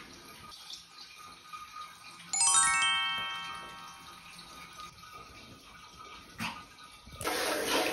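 Faint water sloshing in a shallow bathtub, broken about two seconds in by a bright rising chime sound effect whose notes enter one after another and ring out over a second or so; near the end cheerful background music starts.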